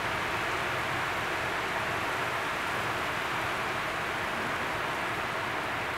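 Heavy rain pouring down in a downpour, a steady even hiss.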